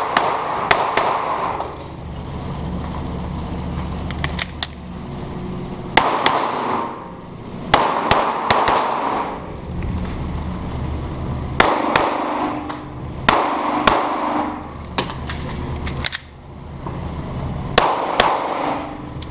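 Semi-automatic pistol fired in quick pairs of shots, in strings a few seconds apart as the shooter moves between positions; each shot echoes in the indoor concrete range. A steady low hum runs underneath.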